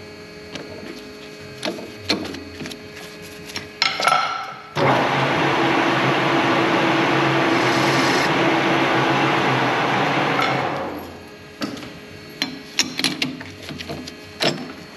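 Tools and metal parts clinking and knocking in a machine shop. About five seconds in, a loud, even noise with a low hum beneath it starts suddenly, lasts about six seconds and fades out, followed by more scattered clicks.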